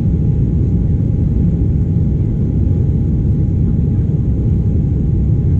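Cabin noise inside an Embraer 195 airliner in flight: a steady low rumble from its GE CF34 turbofans and the airflow, with a faint whine held on one pitch.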